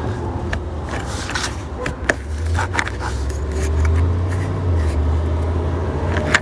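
A plastic trim cover on a seat-rail bolt being pried off with a pry tool: scattered clicks and scrapes, over a steady low hum.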